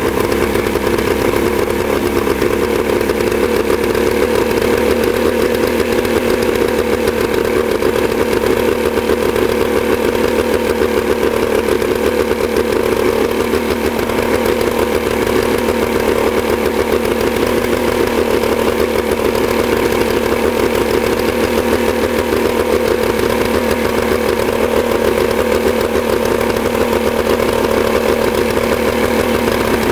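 Johnson 40 hp outboard motor running steadily on a test run after a water pump repair, its cooling stream now pumping strongly.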